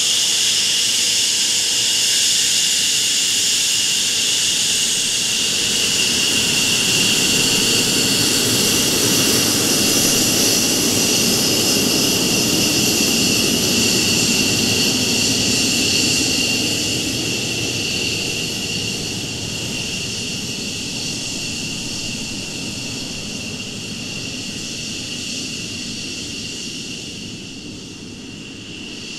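McDonnell Douglas F-15 Eagle's twin Pratt & Whitney F100 turbofans at taxi power: a steady high whine over a rumble as the jet taxis past. The rumble is strongest around the middle, then the sound fades gradually over the last dozen seconds as the jet moves off, tailpipes toward the listener.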